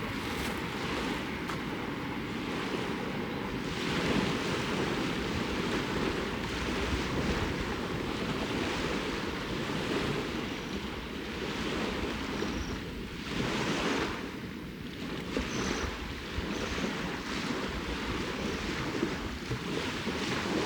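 Waves washing onto a lakeshore with wind, the surges swelling and easing every few seconds.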